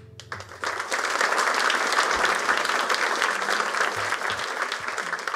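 Live audience applauding, swelling up about half a second in and then holding steady.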